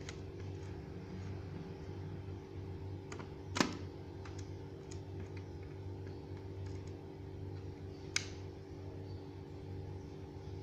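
Sharp clicks of small laptop parts being handled during disassembly: a loud click about three and a half seconds in and another around eight seconds in, with a few fainter ones. A steady low hum runs underneath.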